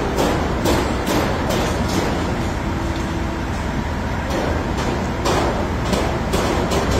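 Busy city street ambience: a steady low rumble of traffic, with a sharp regular beat about twice a second that stops for a couple of seconds in the middle.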